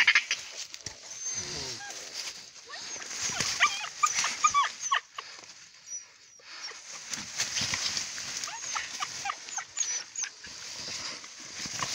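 Hunting dogs whining and yelping in many short high-pitched cries while fighting a honey badger, with rustling and scuffling in the grass.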